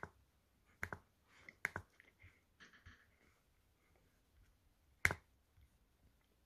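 Scattered sharp clicks from a computer's pointing device: one at the start, another about a second in, a quick pair just after, and the loudest about five seconds in.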